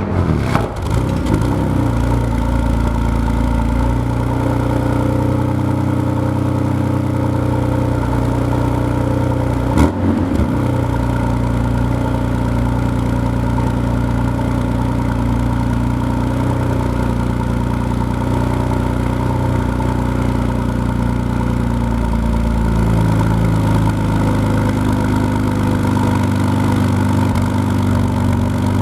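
BMW S55 twin-turbo straight-six running through an aftermarket exhaust, settling into a steady idle just after starting. There is one brief louder burst about ten seconds in.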